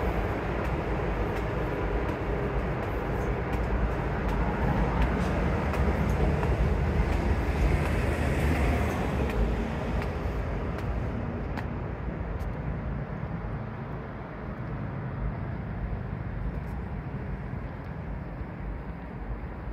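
Steady low rumble of a train running through the station, loudest for the first ten seconds or so and then gradually fading into a fainter rumble of street traffic.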